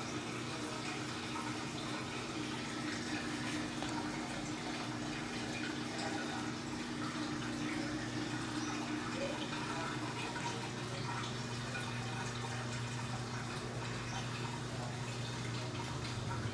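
Electrolux LTE12 top-loading washing machine filling with water: a steady rush of running water over a constant low hum.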